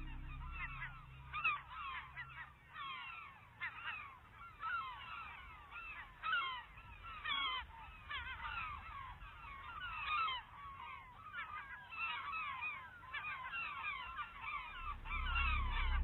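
A flock of seagulls calling, with many short, overlapping cries that glide in pitch. A low hum under the calls fades out within the first couple of seconds and comes back near the end.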